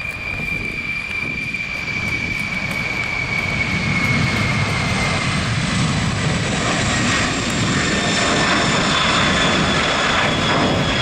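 Jet engines of a Boeing 747-400F freighter, its four turbofans running: a high whine that glides slightly down in pitch over a broad roar, which grows louder about four seconds in and then holds steady.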